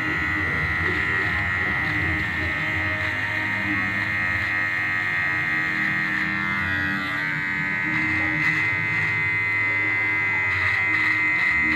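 Cordless electric hair clipper buzzing steadily with a high whine as it trims the hair along the side of the head.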